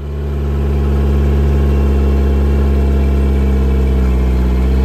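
Mercury 60 hp outboard motor idling steadily with its cowling off. It is the motor the owners say has been running badly.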